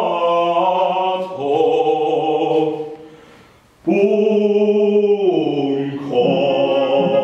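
A man singing in a classical operatic style, holding long notes with vibrato and moving between pitches, with a pause for breath about three seconds in before the next note.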